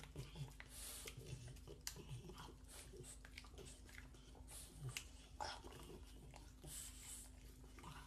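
French bulldog puppy gnawing on a raw carrot: faint, irregular chewing with small crunches and wet mouth clicks.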